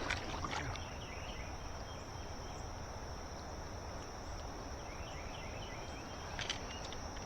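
Steady, high-pitched chorus of crickets, with a couple of faint clicks near the start and again about six and a half seconds in.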